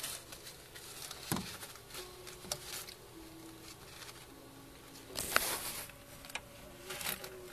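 Bosc monitor moving over paper-towel substrate while hunting locusts: light scattered ticks and scratches, with one louder rustle about five seconds in.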